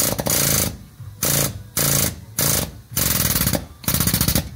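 Air-powered impact tool hammering rapidly on the forcing screw of a brake disc puller, in about six short bursts of roughly half a second each with brief pauses between, working the rusted brake disc off the hub.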